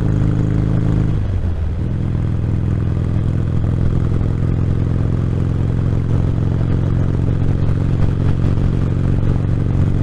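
Motorcycle engine running at a steady cruise of about 50 mph, heard from a microphone inside the rider's helmet with wind noise over it. About a second in, the engine note breaks briefly and comes back slightly lower in pitch.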